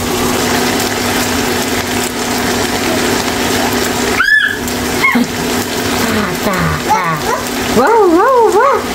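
A toddler's high vocal sounds: a couple of short rising-and-falling cries about halfway through, then a warbling up-and-down call near the end. Under them is a steady rushing noise with a low hum.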